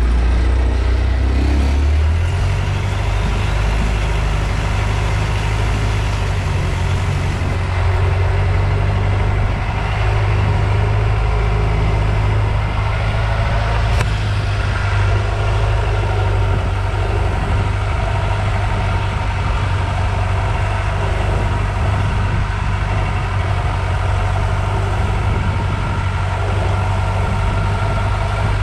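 Engine of a long-tail boat running at cruising speed, a loud low steady hum with water rushing past the hull; the engine note rises about two seconds in.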